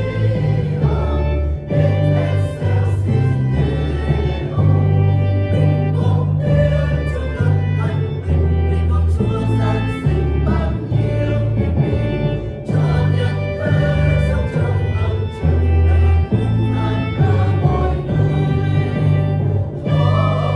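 Church choir singing a Vietnamese hymn, with instrumental accompaniment whose bass notes change about once a second.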